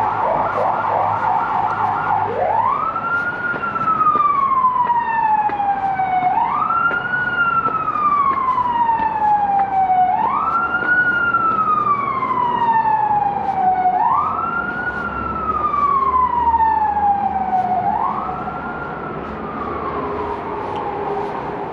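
Emergency vehicle siren, loud. It opens with a fast warble for about two seconds, then switches to a wail that rises quickly and falls slowly, about every four seconds, five times. The last wail is fainter.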